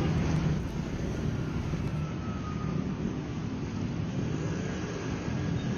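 Steady vehicle traffic noise: an even rush of engines and tyres with a low hum.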